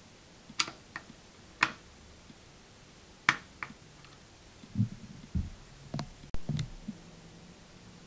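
Screwdriver clicking against the calibration screw of a Condor MDR3 air-compressor pressure switch while the screw is turned to set the cut-in and cut-out pressure: sharp irregular clicks, about seven, with a few dull knocks of the switch being handled around the middle.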